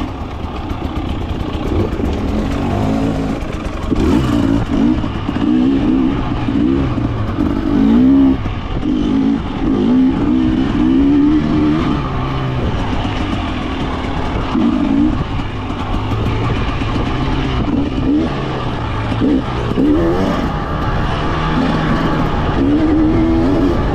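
A 2024 Husqvarna TE300's single-cylinder two-stroke engine being ridden, revving up and dropping back again and again as the throttle is worked, its pitch rising and falling every second or two.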